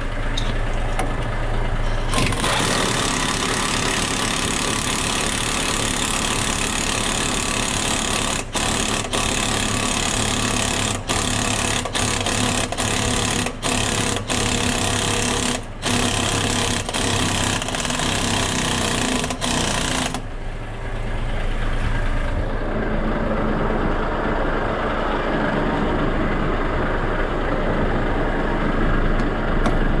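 Large truck engine running steadily. From about two seconds in until about twenty seconds, a loud rushing noise lies over it, broken by a few brief gaps.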